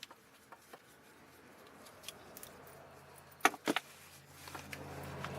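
Hose clamp being worked with a hand tool on a fuel-line hose: light metal clicks, then two sharp loud clicks about three and a half seconds in. A low hum grows near the end.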